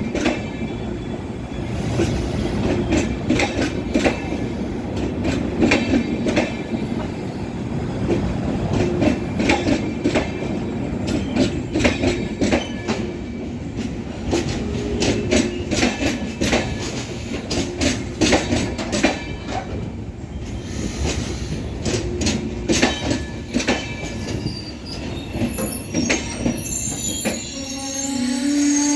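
Express train coaches rolling into a station, the wheels clicking irregularly over rail joints and points, with a low wheel or brake squeal coming and going as the train arrives.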